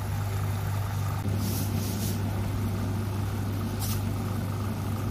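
A steady low hum, with a few brief hissing sizzles from chicken cooking in its own juices in a pan on the stove.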